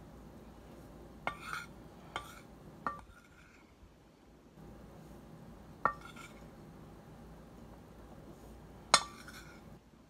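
Metal spoon clinking and scraping against a dish of cornstarch: five sharp clinks with a brief ring, the loudest near the end.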